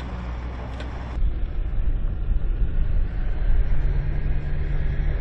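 Armoured military vehicle driving over rough desert ground, its engine running with a low, steady rumble that gets louder about a second in, and a steady hum toward the end.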